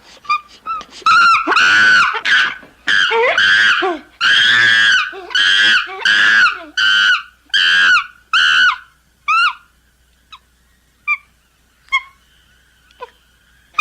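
Common chimpanzee screaming: a rapid series of loud, high calls, roughly two a second. After about nine seconds they thin out into a few short, faint calls.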